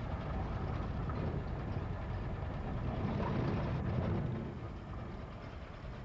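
Car engine and tyre rumble heard from inside the cabin while driving on an unpaved road, a steady low noise that eases off about four seconds in.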